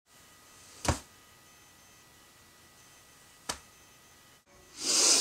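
Two single sharp knocks, about a second in and again about three and a half seconds in, then near the end a loud breathy exhale, a woman's sigh.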